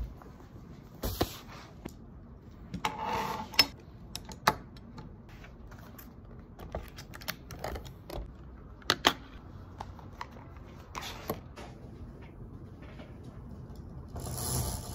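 Scattered light clicks and taps with a few short rustles, small hard objects being handled; a steadier sound with a low hum comes in near the end.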